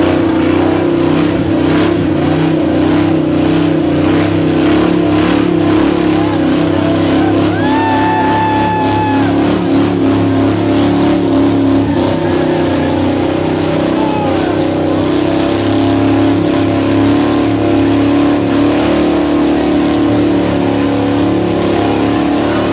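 Chevy S-10 pickup's engine held at high, steady revs while its oversized mud tyres spin and churn in a deep mud hole.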